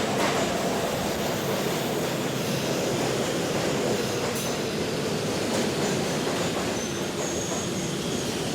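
Metro train running, heard from inside the carriage: a steady rumble of wheels on the track with a couple of sharp knocks. Thin squealing tones from the wheels come in over the second half.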